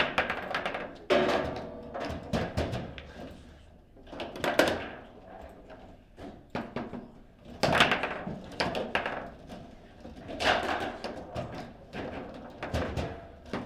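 Foosball being played: the ball is struck by the plastic player figures and bangs off the table walls, with the rods clacking, giving irregular sharp knocks, some much louder hits among quicker small clicks.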